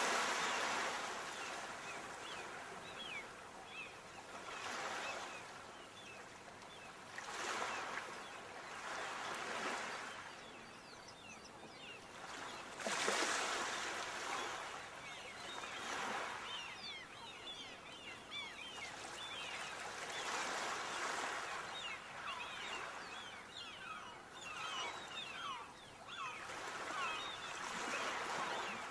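Sea waves washing onto a shore, the surf swelling and fading every few seconds with one louder surge about halfway through. A fine crackle runs between the surges.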